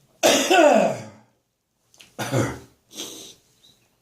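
A person in a coughing fit: a loud cough that trails off in a falling, throaty tone, then another cough about two seconds in and a short breathy rasp after it.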